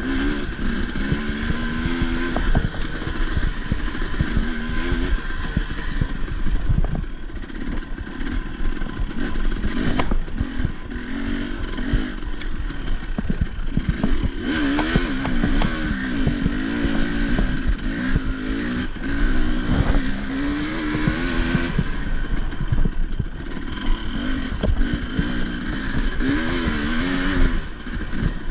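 Enduro dirt bike engine revving up and down continuously as it is ridden over rough ground, with frequent knocks and clatter from the bike.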